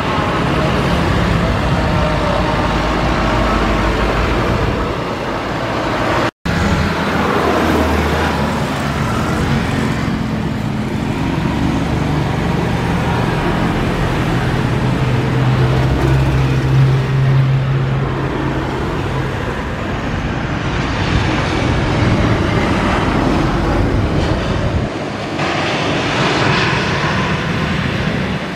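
Jet airliner engines at landing. An Airbus A320 rolls out on the runway, then after an abrupt cut about six seconds in, a Boeing 737 passes low on final approach, touches down and slows on the runway. A louder rushing hiss rises about three seconds before the end.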